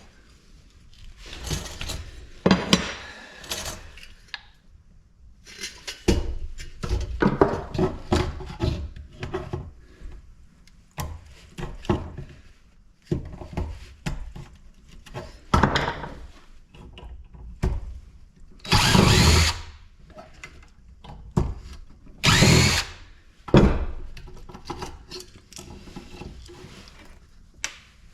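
Clanks, knocks and rattles of metal parts being handled as a large light fixture is dismantled for scrap, with two short runs of a power tool in the latter part.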